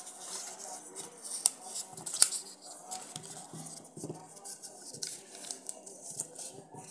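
Sheet of paper crinkling and rustling as fingers press and smooth it into the bottom of an oiled metal cake tin, with a few sharp crackles.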